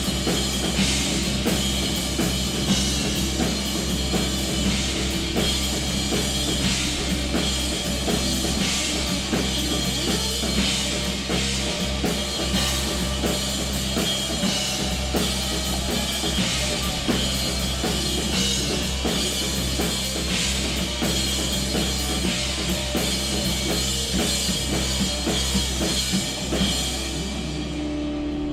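A live rock band playing an instrumental stretch with no singing: a drum kit with bass drum and cymbals keeps a steady beat over bass and guitar, and the cymbals fade out near the end.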